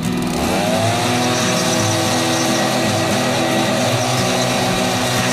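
A handheld blower spins up about half a second in, its whine rising and then holding steady, over the steady running of the crane's engine.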